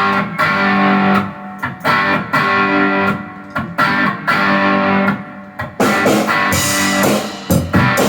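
Rock music intro: a distorted electric guitar repeats a short chord phrase with brief breaks between repeats, and drums and cymbals join about six seconds in.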